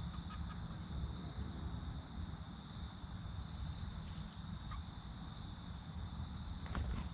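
Outdoor ambience: a steady low rumble under a continuous high-pitched tone, with scattered small ticks and a few brief bird chirps.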